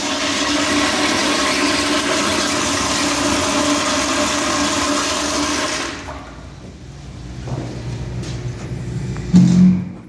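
Restaurant toilet flushing: water rushing loudly with a steady tone, cutting off suddenly about six seconds in and giving way to quieter water running. A brief low hum sounds near the end.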